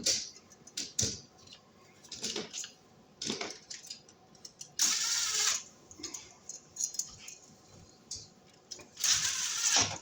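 Outlet cover plates and their small screws clattering as they are handled and dropped into a box: a few short clicks, then a longer rattle about five seconds in and another near the end.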